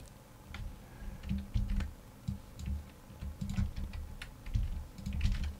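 Computer keyboard keystrokes and clicks, light and irregular, with dull low knocks under them.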